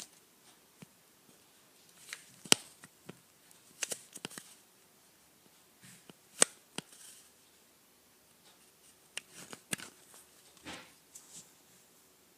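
Handling noises in a small room: a scatter of light clicks and taps, with two sharper clicks about two and a half and six and a half seconds in.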